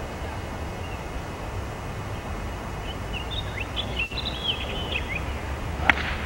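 Steady low background rumble with a few birds chirping, then near the end a single sharp crack of a golf club hitting the ball off the tee.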